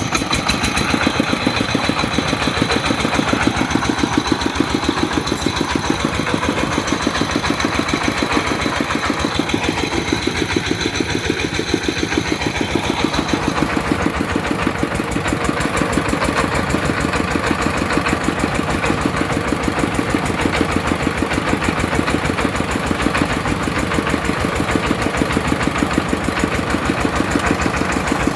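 Well-drilling rig's engine running steadily with a fast, even beat. A thin high whine over it stops about halfway through.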